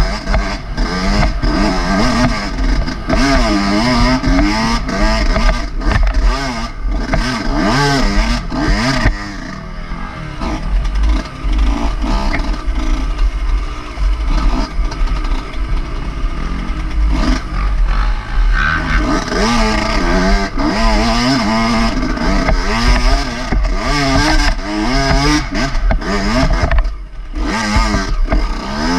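Yamaha dirt bike engine revving up and down as it is ridden hard, the throttle rising and falling continually. It eases off briefly about ten seconds in and again near the end.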